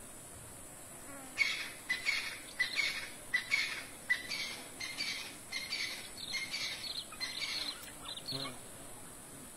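Raccoon chittering: a run of short, harsh calls, about two to three a second, starting a little over a second in and stopping near the end, over a steady high hiss.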